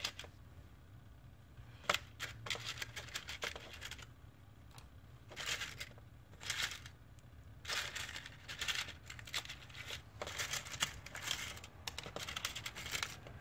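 Small plastic King Kong drone propellers clicking and rattling against each other and a clear plastic box as fingers sort through them. The clatter is sparse at first and gets busier from about halfway through.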